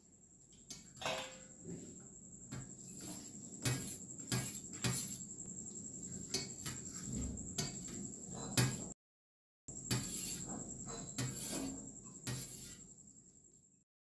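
Steel spoon clinking and scraping against steel plates and bowls as rice is served, many separate clinks. A steady high-pitched whine runs under it; the sound cuts off briefly about nine seconds in, resumes, and fades out near the end.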